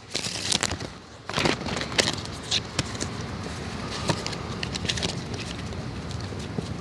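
Playing cards being handled: irregular light clicks and rustles over a steady hiss.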